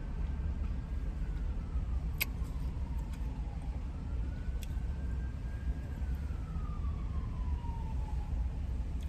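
A siren wailing in slow rises and falls, each sweep lasting a few seconds, over a steady low rumble, with a couple of sharp clicks in between.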